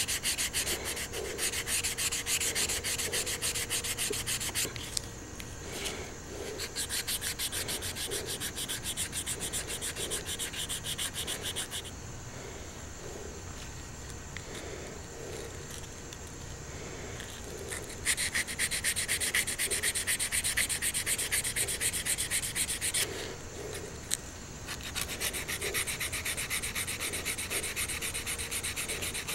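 Abrasive rubbed rapidly back and forth by hand on the metal spine and springs of a pocket knife, sanding off corrosion in long runs of quick strokes, with a quieter stretch midway and a short pause later on.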